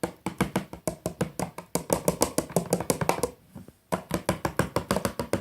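Slime glue and shaving-foam mixture being stirred fast in a bowl, a utensil clicking against the bowl about eight times a second, with a short pause a little past halfway.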